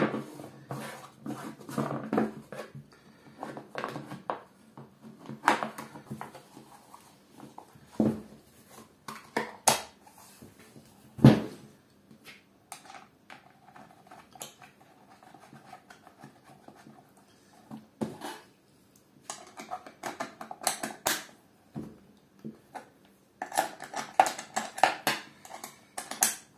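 Handling noises as the chainsaw's side cover is fitted back over the bar and chain and its retaining nut is done up: scattered clicks, knocks and scrapes of hard parts. The loudest knock comes about 11 seconds in, and there is a quick run of clicks near the end.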